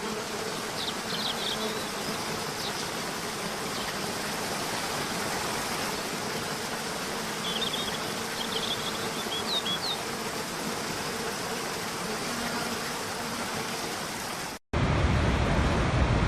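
Steady rush of falling water, with a faint hum beneath it and a few brief high chirps near the start and again about halfway through. About 14.5 s in the sound cuts out for an instant and a louder, deeper rush of water takes over.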